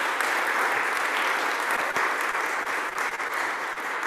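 Audience applauding, steady clapping that eases off slightly near the end.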